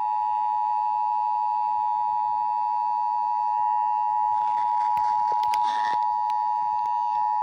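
Emergency Alert System attention signal over FM radio: a loud, steady two-tone beep (853 and 960 Hz sounded together) held for about eight seconds, then cut off sharply at the end. It announces an Amber Alert broadcast.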